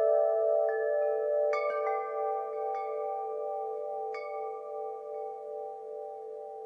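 Wind chimes ringing: a few irregular strikes in the first few seconds, their tones overlapping, then no new strikes after about four seconds as the chord slowly rings out and fades.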